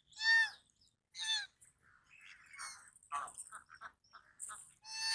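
Goose honking: two loud honks in the first second and a half, then a run of shorter, quieter calls, and another loud honk near the end.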